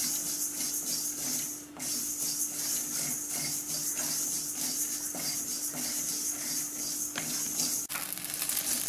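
Flat wooden spatula stirring and scraping dry sago pearls around a stainless steel kadai as they dry-roast: a steady rustling, hissing scrape in repeated strokes, with one sharp knock near the end.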